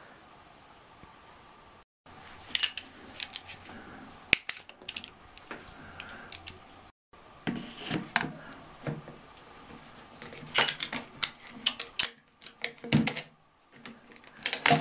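Clicks, knocks and clatter of grey plastic drain pipes and fittings being handled and pushed together by hand, in short scattered bursts.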